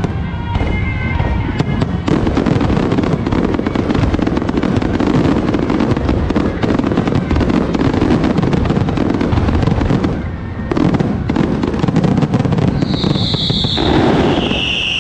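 Firecrackers and fireworks going off in a dense, continuous rapid crackle, easing briefly about ten seconds in before resuming. Near the end a couple of high-pitched tones sound over the crackling.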